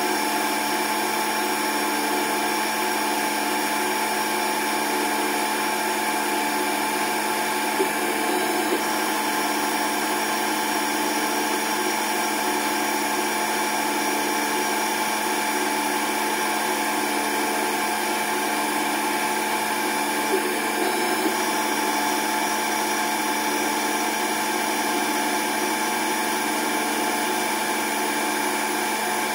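Intelitek Prolight CNC turning center cutting an aluminium workpiece: a steady machine whine of several tones with the noise of the cut, and two brief louder spots about 8 and 20 seconds in.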